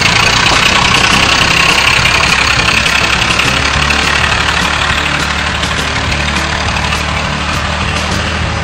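An engine running steadily, with a loud hiss over it.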